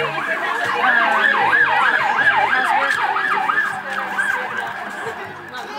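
Emergency vehicle siren in a fast up-and-down yelp, with more than one siren overlapping. It grows louder about a second in and fades over the last two seconds.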